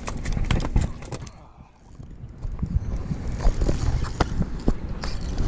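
Irregular clicks and knocks on a small fishing boat over a low rumble of wind on the microphone, dipping quieter for a moment about a second and a half in.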